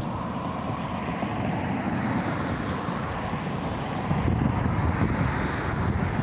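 Wind buffeting the microphone over a steady rushing vehicle noise, a little louder after about four seconds.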